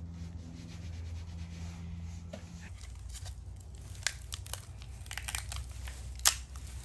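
Thin plastic packaging crinkling and tearing as a new engine bearing shell is unwrapped by hand, starting about three seconds in, with a sharp snap near the end. A steady low hum runs under the first few seconds.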